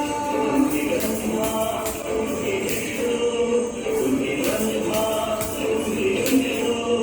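A group singing a song in unison, with a jingling percussion instrument like a tambourine keeping a steady beat.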